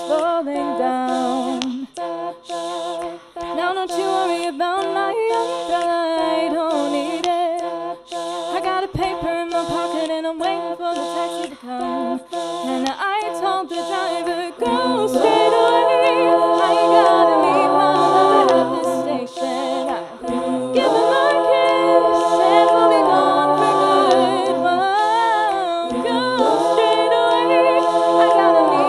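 Unaccompanied female voice singing wordless layered harmonies, several vocal parts at once with no instruments. The sound grows fuller and louder about halfway through.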